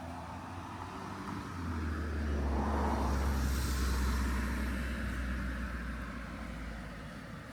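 A passing engine: a low rumble swells about two seconds in, is loudest around three to four seconds, then fades away.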